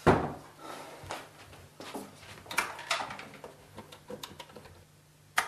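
A loud knock at the wooden cabinet, then a run of clicks and rattles as a corded push-button telephone is handled and its keys pressed to dial, ending with one sharp click.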